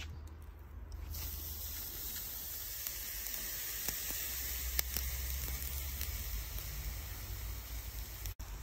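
Raw flat iron steak sizzling on the hot grate of a charcoal grill. The sizzle comes in suddenly about a second in, as the meat goes down, and holds steady with a few pops.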